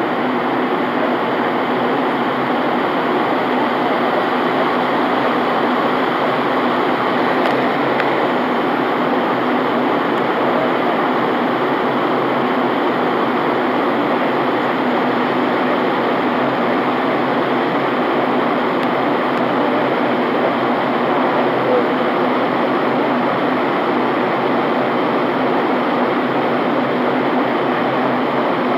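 Steady cabin noise inside an airliner in flight: the even rush of airflow and engines.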